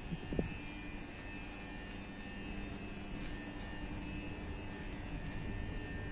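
Alstom Citadis Dualis tram-train (U53600) rolling past close by: a steady electric hum with faint high whining tones from its traction equipment, and a brief click about half a second in.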